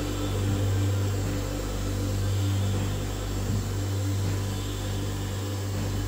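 VzBot 3D printer running a fast print: a steady hum of its motors and fans, with the lowest part of the hum dipping briefly about every second and a half.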